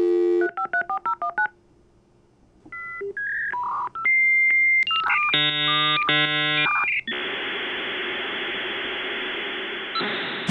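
Dial-up modem connecting: a dial tone, a quick run of touch-tone dialing beeps, a short pause, then a series of answering beeps and shrill handshake tones, ending in about three seconds of hissing static.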